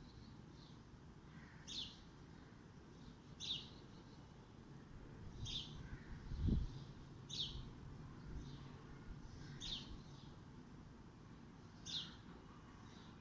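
A bird repeats a short, high call that falls in pitch, about once every two seconds, over a steady low background rumble. A single low thump comes about halfway through.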